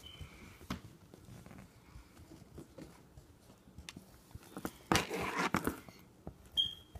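Colored pencil scratching and tapping faintly on lined paper. A louder brief rustle comes about five seconds in, and a short high squeak near the end.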